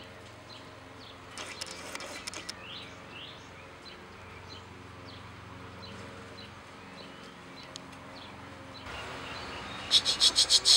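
Outdoor ambience with small birds chirping, short high calls scattered throughout. Near the end, a loud rapid train of about eight sharp, high-pitched pulses lasts under a second.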